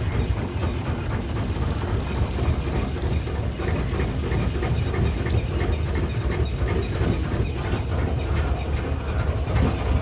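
River boat's engine running steadily, a loud continuous low rumble.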